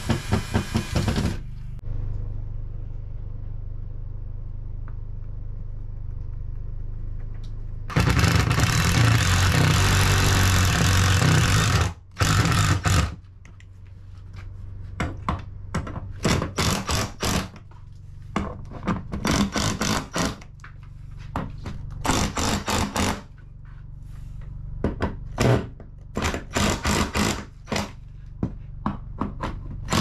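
Hammer striking wood in quick runs of several blows, with pauses between the runs. A loud steady noise lasts about four seconds in the middle.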